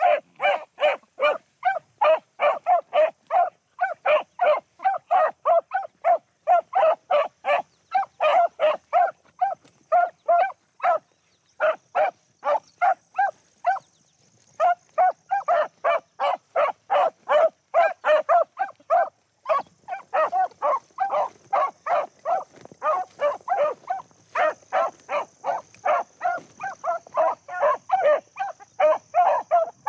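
Beagles baying as they run a rabbit's track: a fast, steady string of barks, about three a second. The barking breaks off for a few seconds midway, then resumes with barks overlapping.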